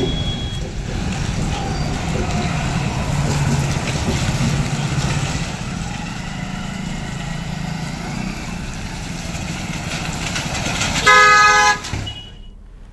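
Road traffic on a wet road: vehicle engines running and tyres hissing over wet pavement. About 11 s in, a vehicle horn honks once, briefly and loudly.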